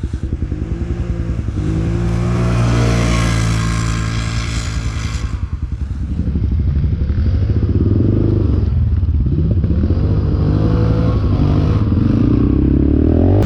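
ATV engine running and revving, its pitch climbing and dropping several times, with a brief drop in loudness about five seconds in.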